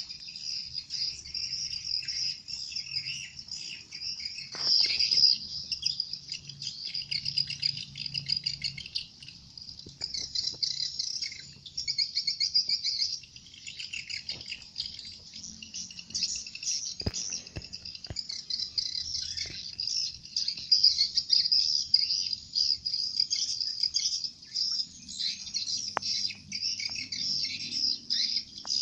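Small birds chirping and twittering rapidly and continuously in high-pitched bursts of uneven loudness, with a few faint clicks between.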